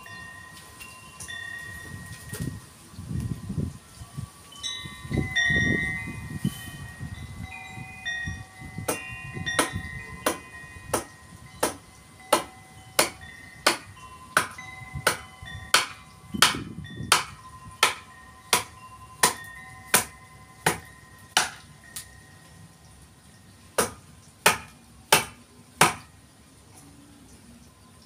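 A blade chopping into a forest red gum branch being shaped into a didgeridoo: sharp strikes about one and a half a second from roughly a third of the way in, breaking off briefly before a few more near the end. Wind chimes ring during the first part, along with a couple of low rumbles.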